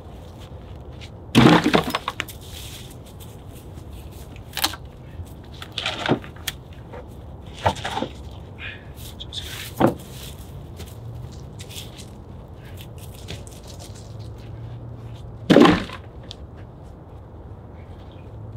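Wooden logs knocking and clattering as they are dropped and set onto a log pile. The loudest clatter comes about a second and a half in and another near the end, with smaller knocks between.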